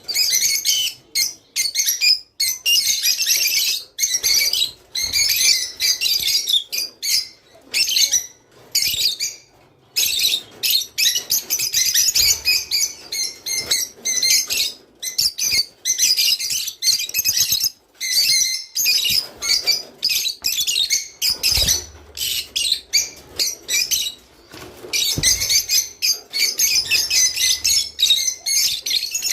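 Several lovebirds (rosy-faced lovebirds) chirping and chattering: a dense run of shrill, high chirps broken by brief pauses.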